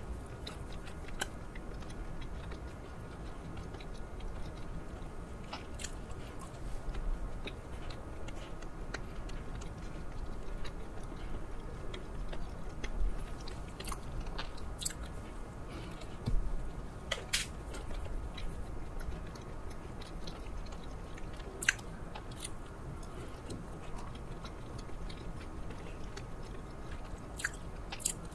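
Close-miked chewing of a soft, filled melon bun, with a few sharp clicks scattered through the chewing.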